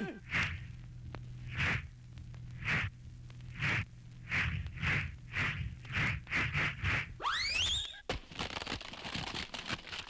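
Comic sound effects of the dog being swung around by the tail: a run of whooshes that start about a second apart and speed up to several a second, over a low steady hum. About seven seconds in comes a steeply rising whistle glide as the dog is tossed into the air, followed by a crackling noise.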